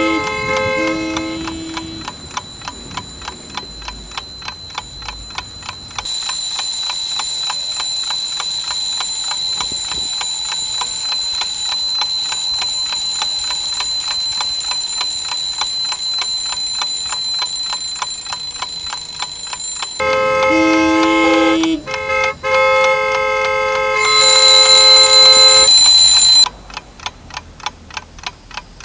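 Clock ticking steadily, about two to three ticks a second. A steady high-pitched tone sets in about six seconds in and cuts off about twenty seconds in. Sustained music chords sound at the start and again later, with a louder high tone briefly, and the ticking is left on its own for the last couple of seconds.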